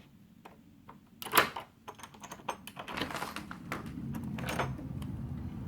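Several clicks and knocks, one loud click about a second and a half in, then a steady low rumble that builds from about halfway. It sounds like a jet, yet no plane is in the sky.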